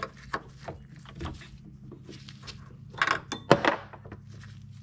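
Small metallic clicks and scrapes as the rusty steel retaining clip is worked off the brake hose fitting at its bracket, with a louder sharp metal clink that rings briefly about three seconds in.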